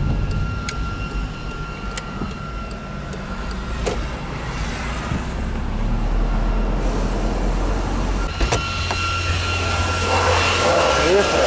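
Inside the cabin of a Volkswagen Voyage driving slowly, with a low engine and road rumble and a few sharp clicks. Near the end the driver's door opens and a broad hissing noise from outside comes in.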